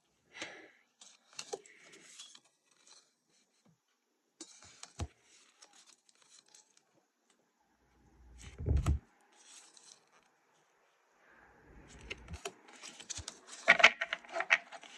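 Tarot cards handled and laid down one by one, with light clicks and rustles of card stock, a low bump about nine seconds in. Near the end comes a denser, louder run of card clicks and rustling as the pile of cards is straightened.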